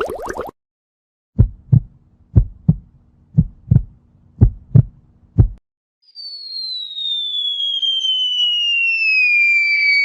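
Heartbeat sound effect: about five lub-dub double thumps, roughly one a second. It is followed by a long high whistle that glides slowly down in pitch.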